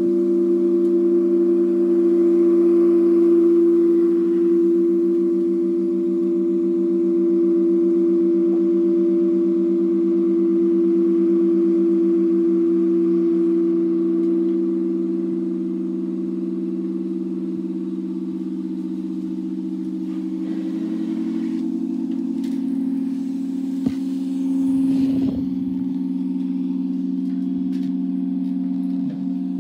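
Several homemade plastic-pipe organ pipes blown by air from inflated balloons, sounding a sustained chord of low steady tones. The lowest tone wavers quickly for a while, and the chord shifts twice as pipes change or drop out. A sharp click and a short rustle come near the end.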